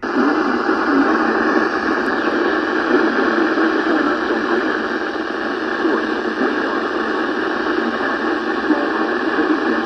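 Loud, steady radio static hiss that cuts in abruptly, confined to a narrow, muffled band of frequencies.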